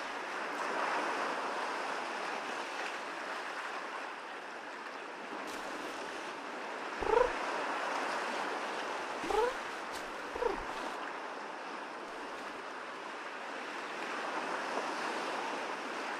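Steady wash of waves on a shore, with three short calls of a peacock about halfway through, each sliding upward in pitch and louder than the surf.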